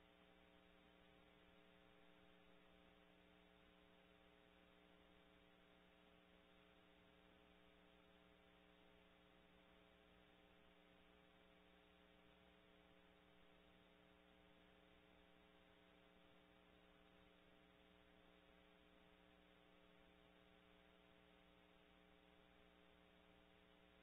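Near silence: a faint, steady electrical hum with hiss.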